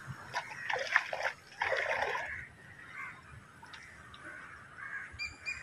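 Sea waves splashing against shore rocks, loudest in the first two seconds and then quieter. Near the end a bird starts a quick run of short, high repeated notes, about five a second.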